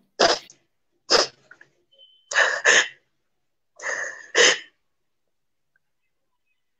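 A woman crying: four short, sharp sobbing breaths and sniffs, the last two each in two quick catches.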